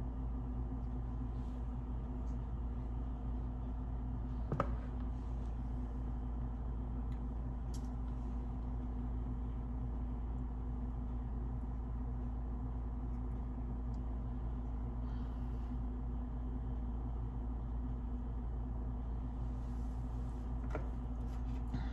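Steady low mechanical hum with one sharp click about four and a half seconds in.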